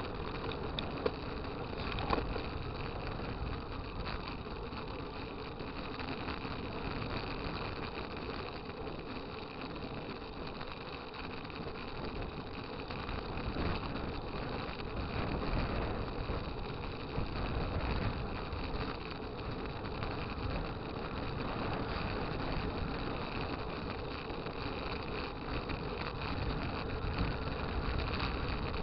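Steady running noise of a road vehicle on the move, heard from on board: a low rumble of wind and road noise with an engine underneath. Two brief knocks come about one and two seconds in.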